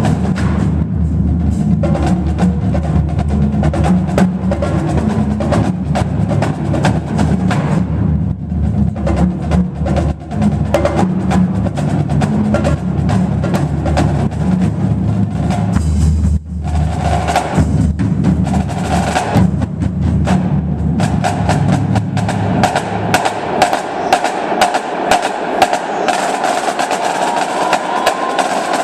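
Marching drumline playing fast, dense rhythms on snare drums, tenor drums and a line of pitched bass drums. There is a brief break about halfway through. In the last few seconds the bass drums drop out, leaving the snares and tenors.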